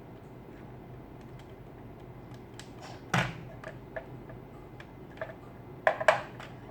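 Robot vacuum cleaner running with a steady low hum. Over it come a series of sharp clicks and knocks, a loud one about three seconds in and a loud cluster of two or three near the end.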